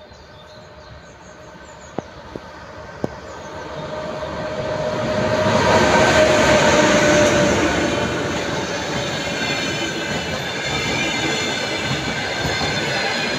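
EP1M electric locomotive hauling a passenger train, passing close by. The sound grows as it approaches and is loudest as the locomotive goes past about six seconds in, then settles into a steady rumble of passenger cars rolling by, with thin high squealing tones over it. Three sharp clicks come between two and three seconds in.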